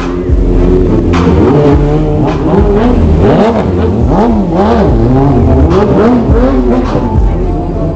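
Sportbike engine revving up and down over and over in quick throttle blips as the bike is ridden through low-speed stunts.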